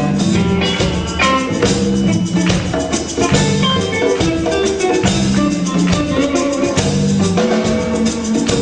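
Live rock band playing an instrumental passage: electric guitar and keyboard over bass and a steady drum-kit beat.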